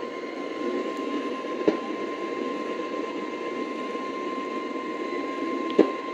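Radio receiver on a weak, hard-to-receive station: steady static and hiss with a faint single-pitch alert tone just above 1 kHz running through it. Two sharp clicks, one about a second and a half in and one near the end.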